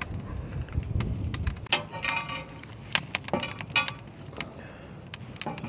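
Wood campfire crackling under a cast-iron skillet, irregular sharp snaps. A low rumble runs through the first second and a half, and two brief high-pitched tones sound about two and three and a half seconds in.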